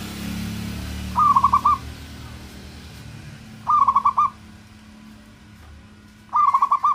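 Zebra dove (perkutut) singing: three short cooing phrases a couple of seconds apart, each a quick run of about five staccato notes.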